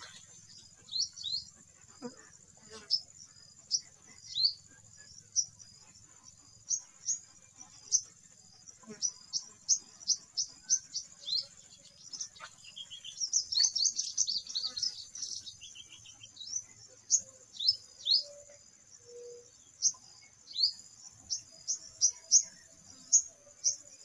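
Sunbird calling: short, sharp, high chirps, one or two a second, many sliding downward, with a quick burst of twittering about halfway through. A steady high-pitched insect drone runs underneath.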